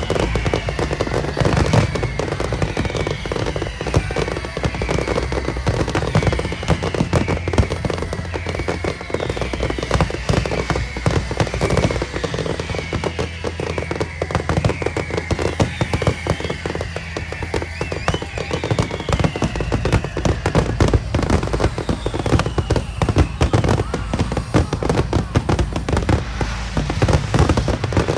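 Fireworks going off in a dense, continuous barrage of bangs and crackling, with repeated falling whistling tones over it; music plays underneath.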